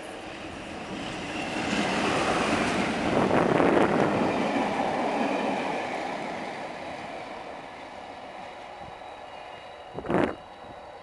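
Class 47 diesel locomotive, with its Sulzer twelve-cylinder engine, passing at speed with a train of coaches: the engine and wheel noise swells, is loudest about three or four seconds in, then fades as the train draws away. A brief thump near the end.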